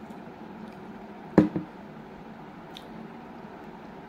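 A ceramic bowl set down with a sharp knock and a quick smaller second knock about a second and a half in, ringing briefly.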